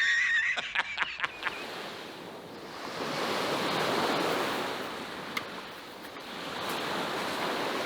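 Waves washing in, a rushing noise that swells and fades twice. A short warbling whistle and a few clicks come in the first second or so.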